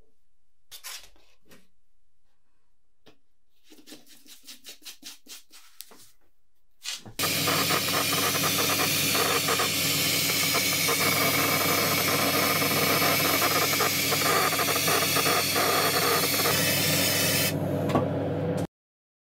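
Powder-coating gun spraying black powder paint: a loud, steady hiss of compressed air with a low hum under it, starting about seven seconds in and cutting off suddenly near the end. Before that come a few light scrapes and a quick run of small clicks as the gun is filled with powder.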